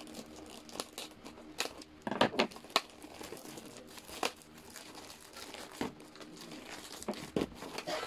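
Clear plastic packaging film crinkling and crackling as it is handled and pulled at, with sharp crackles at irregular intervals.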